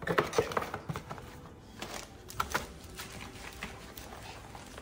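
Cardboard packaging and paper wrapping handled during unboxing: rustling, with a quick run of light knocks and taps in the first second and scattered taps after.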